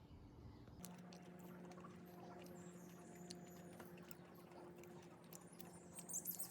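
Near silence: a faint steady hum starts about a second in, with scattered faint ticks, and a small bird begins chirping near the end.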